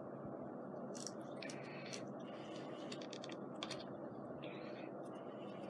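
Paper scrapbook stickers being handled: a few small clicks and brief papery rustles over a steady low background hum.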